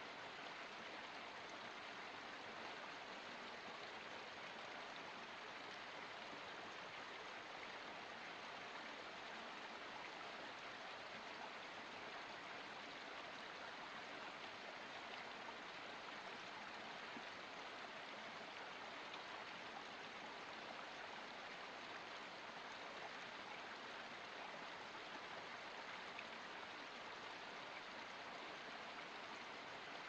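Small forest spring trickling and splashing down mossy rocks: a faint, steady rush of running water.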